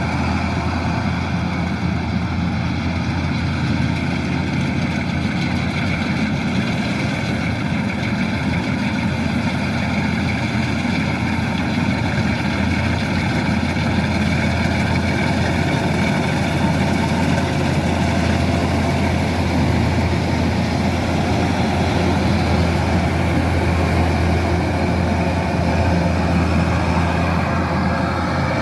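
Kubota DC-108X combine harvester running steadily: a constant engine drone with an even machine whine above it, no change in pace.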